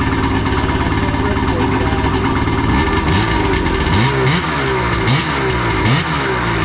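Two-stroke snowmobile engine of a Polaris Dragon idling, then revved in four quick blips about halfway through.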